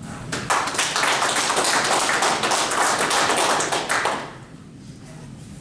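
A small group of people applauding, a dense patter of claps that stops about four seconds in.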